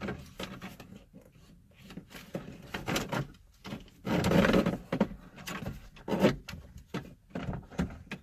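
Wiring and plastic dash trim being handled and tucked into the radio opening: irregular rustling, clicks and knocks, with a longer, louder rustle about four seconds in.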